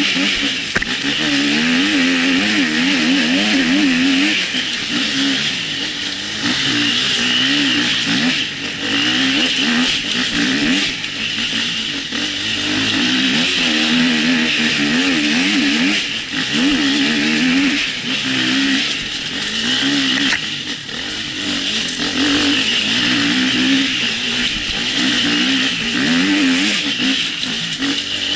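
Husqvarna enduro motorcycle engine, heard from the rider's helmet camera, revving up and down in quick, constant throttle changes as it is ridden over rough dirt trail.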